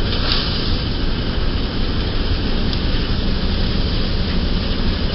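Wheat thresher running steadily at full speed while wheat is fed into it: a loud, continuous mechanical rumble and rushing noise. A brief brighter hiss comes just after the start.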